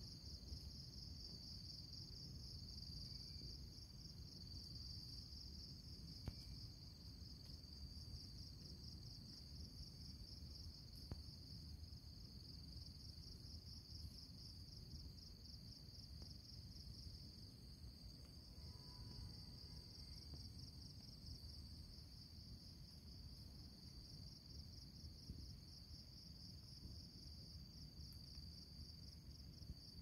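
Faint, steady chorus of insects chirring in a fast, even pulse, high-pitched, over a low rumble.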